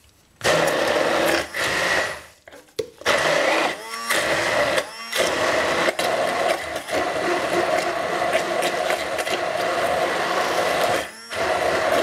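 Hand-held immersion blender puréeing tofu, sautéed vegetables and water into a cream in a plastic beaker. The motor starts about half a second in and stops and restarts a few times, its pitch sliding as it slows and speeds up. It then runs steadily for several seconds and pauses briefly near the end before starting again.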